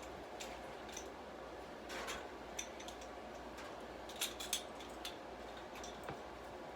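Scattered light clicks and taps of hand work while measuring and marking for the caster wheels, a handful over several seconds; the loudest two come close together about four seconds in.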